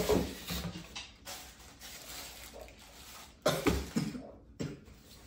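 Paper and a cardboard shoe box rustling and knocking as a new pair of shoes is unpacked, with a short, louder burst of sound from the boy about three and a half seconds in.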